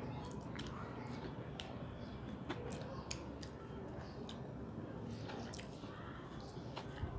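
Close-up chewing of a mouthful of vegetable biryani, with scattered soft wet clicks and smacks of the mouth, and fingers squishing rice on a steel plate.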